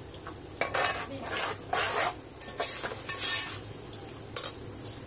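A metal spoon scraping and stirring round an aluminium pot in a string of about six strokes, over the sizzle of onion paste and ground spices frying in oil.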